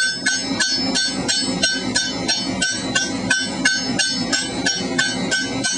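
Hand hammer striking a hot steel pipe end in a conical swage die: an even run of light ringing metal blows, about four a second, as the pipe is necked down into a tapered rush tip.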